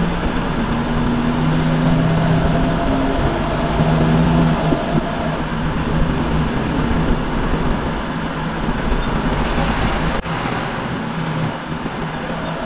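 Truck's diesel engine running with road noise, heard from inside the cab as it drives: a steady hum with a sharp click about ten seconds in.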